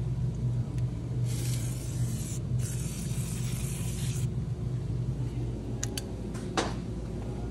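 Aerosol spray can sprayed through its straw nozzle onto an engine valve cover in two bursts, the first about a second long and the second nearly two seconds, over a steady low hum. A few sharp clicks come near the end.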